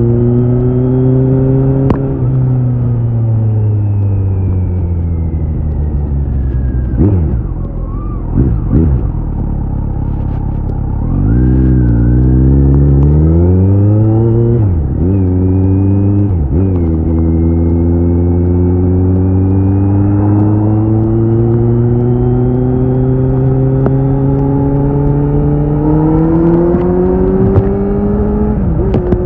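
Kawasaki Z900's inline-four engine through an SC-Project CRT titanium slip-on exhaust while riding, with wind noise on the microphone. The engine note falls as the bike slows off the throttle, with a few quick rises and falls in the middle. It then climbs in a long, steady pull and drops off near the end.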